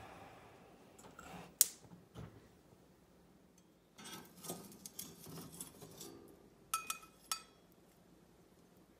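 Steel tongs clinking against a small steel bowl as a burning piece of charcoal is lifted off the gas burner and set into the bowl. A clatter starts about four seconds in, and two sharp ringing metal taps come near seven seconds. Before that, the burner's flame hiss dies away and there is a single sharp click.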